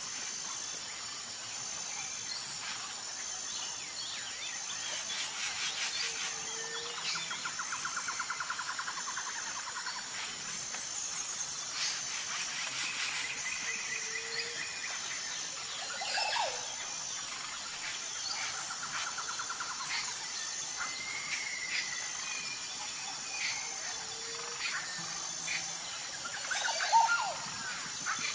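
Outdoor nature ambience of small birds chirping and insects trilling, with a steady, evenly pulsed high chirp and a louder call near the end.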